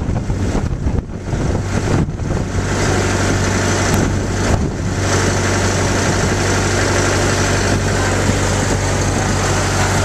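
Boat's engine running steadily while under way, a low hum beneath a broad rush of water and wind.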